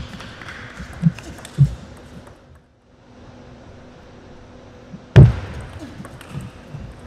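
Table tennis ball struck by rackets and bouncing on the table: a few sharp clicks and knocks in the first two seconds, then, after a brief lull, a louder knock a little past five seconds followed by a few lighter hits.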